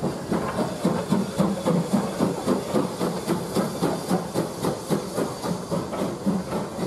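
Steam locomotive pulling a train out along the platform: an even beat of about two chuffs a second with steam hissing, as the carriages roll past.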